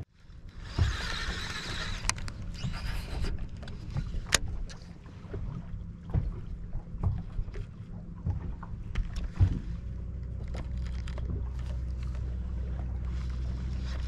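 Small waves slapping against a fishing boat's hull, with scattered knocks and clicks from handling a rod and baitcasting reel and a short hiss about a second in. A steady low hum sets in about ten seconds in.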